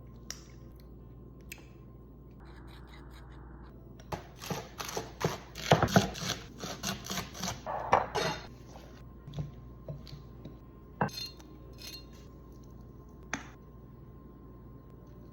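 Utensils and dishes clinking and scraping in a dense clatter lasting about four seconds, followed by a few single clinks.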